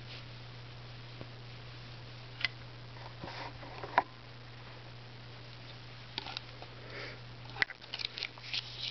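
Quiet handling noise from a shirt on a hanger being shown: scattered light clicks and rustles, becoming busier in the last three seconds. A steady low hum runs underneath.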